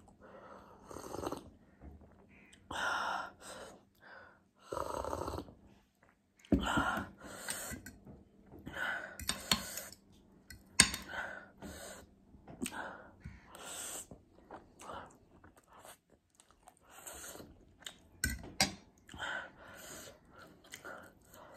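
Mukbang eating sounds: sips of hot water from a mug, then slurping and chewing spicy ramen noodles, in short irregular bursts with a few sharp clicks.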